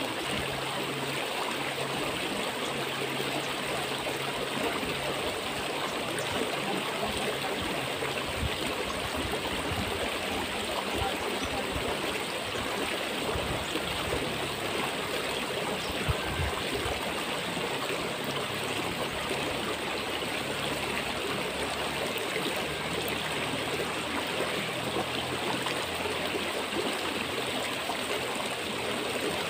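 Steady rush of flowing river water, with a single brief click about halfway through.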